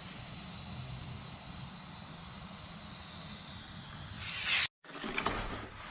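Steady hiss of compressed air in a sandblasting setup. A louder rush of air swells about four seconds in and cuts off suddenly.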